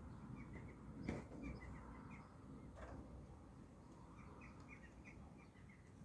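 Faint birds chirping, a scatter of short chirps, with two soft clicks, one about a second in and one near three seconds.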